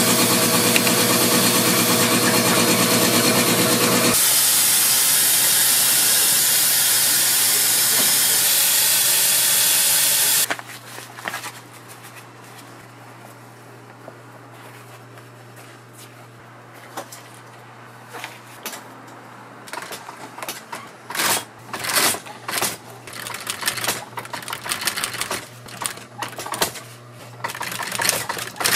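A loud steady hiss from a workshop machine for about the first ten seconds, cutting off suddenly. Then an industrial post-bed sewing machine's motor hums steadily, with short bursts of stitching through the leather boot upper again and again in the second half.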